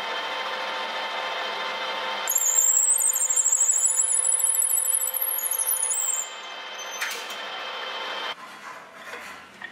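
Metal lathe running with a steady hum as a twist drill in the tailstock chuck bores into the end of a spinning wooden handle blank. From about two seconds in, the bit cutting gives a loud, high, wavering squeal for about four seconds. Near the end the drill is backed out and the machine sound drops away.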